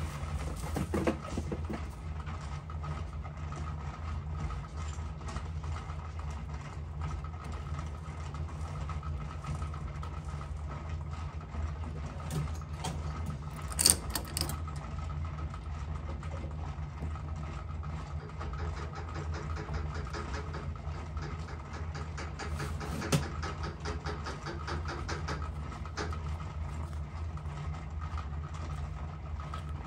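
Workshop machinery running with a steady low hum, with a few sharp clicks, the loudest about halfway through and another about three-quarters of the way through.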